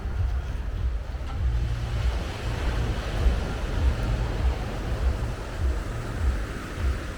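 Surf washing onto the beach, swelling a few seconds in, over a low rumble of wind buffeting the microphone.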